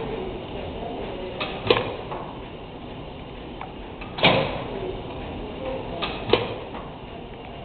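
Large Allis-Chalmers stationary engine running, its works clattering steadily, with a sharp bang three times, about every two seconds, the second and third led by a lighter click.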